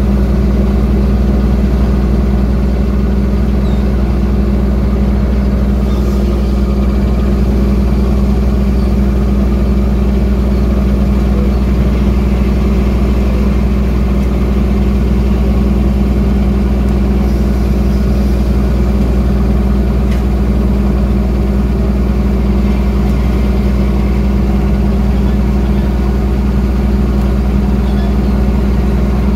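Fishing vessel's engine running steadily: a loud, constant deep hum that does not change.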